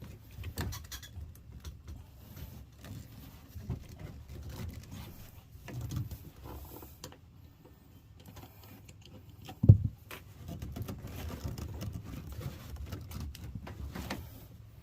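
Hand work on plumbing: scattered clicks, knocks and rattles of pipe and fittings being handled, with one sharp, loud knock about ten seconds in.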